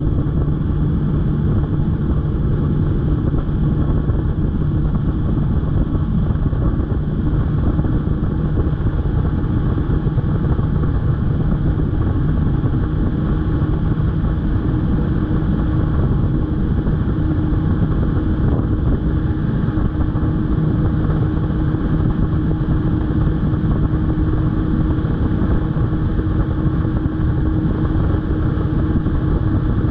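Bass boat's Mercury outboard motor running steadily at speed, with the rush of wind and water from the hull running flat out.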